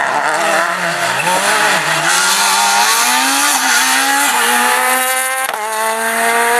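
Ford Fiesta rally car's engine accelerating hard, its pitch climbing through the gears and dropping sharply at each upshift, twice in the second half.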